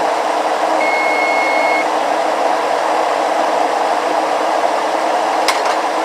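Kitchen exhaust fan running loudly and steadily. A single electronic beep lasts about a second, about a second in, and there is a sharp click near the end.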